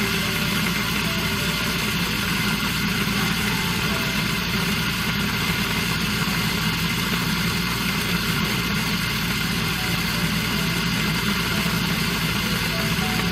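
Electric seed grinder motor running steadily, whirring as it grinds a seed mixture into fine powder.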